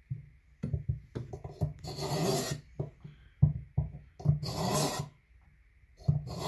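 A cleaver blade drawn through the slot of an AccuSharp SharpNEasy two-step pull-through sharpener, rasping. There are three longer rasping strokes about two seconds apart, with short knocks and scrapes between them as blade and sharpener shift on the wooden tabletop.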